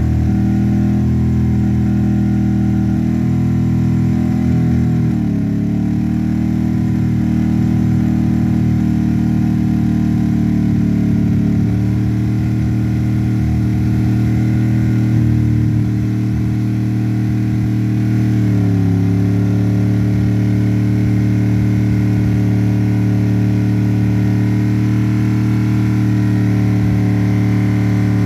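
1999 Dodge Ram's 318 V8 running steadily with no coolant in it, being run to destruction. Its speed sags slightly about five seconds in and settles a little lower about two-thirds of the way through.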